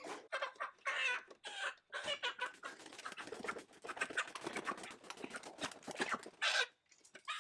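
Cornish Cross broiler chickens being handled, with wings flapping in a rapid flurry of beats from about two seconds in until near the end, and some squawks.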